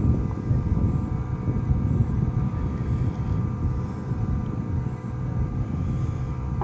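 A motor running steadily with a constant hum, over a low, uneven rumble.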